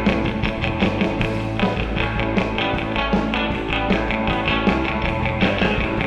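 Rock soundtrack music with guitar over a steady drum beat.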